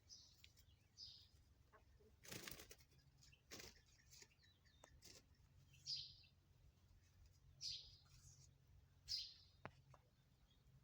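Faint short, high bird chirps every second or two, with two brief rustling noises a couple of seconds in.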